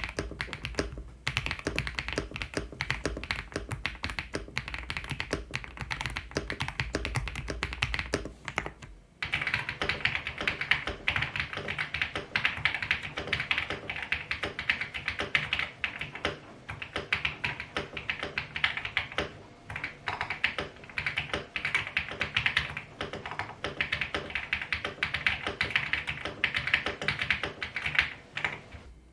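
Typing on a tape-modded Ajazz AK820 Max mechanical keyboard: a steady run of key clicks. It pauses briefly about nine seconds in, then resumes faster and louder.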